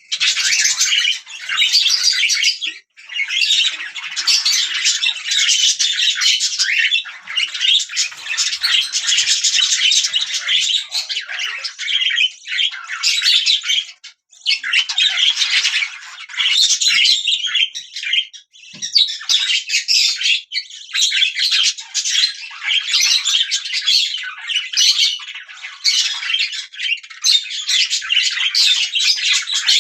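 Budgerigars chirping and chattering almost without pause, a dense high-pitched warble broken by a few short gaps.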